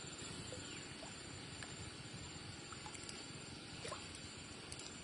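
Faint, steady water noise at a fishing spot, with a few short, faint chirps scattered through it.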